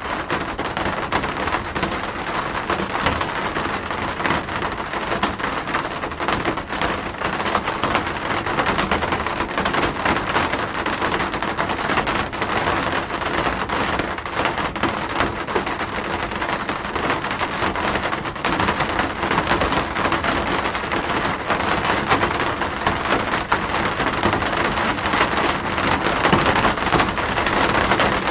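Steady rain with a dense patter of individual drops, rising a little near the end.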